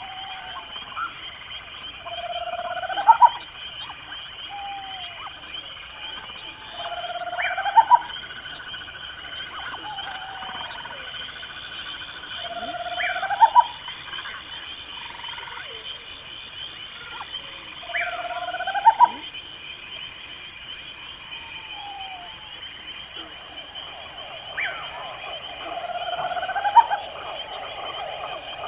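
Night chorus of crickets trilling steadily, with a faint regular high ticking and a short rising call from another animal repeated every few seconds.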